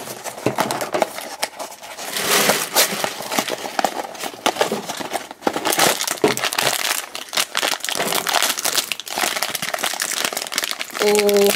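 Cardboard blind box opened by hand, then a foil blind bag crinkling and crackling in irregular bursts as it is handled and opened. A voice starts just before the end.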